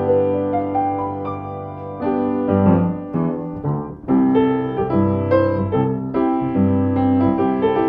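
Background piano music: slow, held chords and notes changing about once a second, with a brief dip in loudness about four seconds in.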